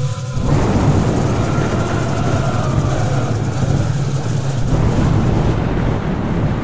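Abstract experimental soundtrack: a dense rumbling rush of noise over a low steady hum sets in about half a second in, replacing held tones, with faint wavering tones above it.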